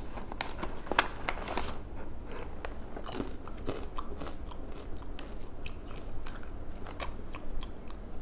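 Someone chewing a mouthful of salted egg yolk nasi lemak with crunchy fried anchovies and peanuts: many irregular crisp crunches.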